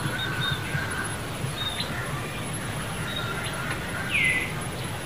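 Forest ambience: scattered short bird chirps over a steady high insect whine and a low rumble. About four seconds in there is one loud, short, high squeak that falls in pitch.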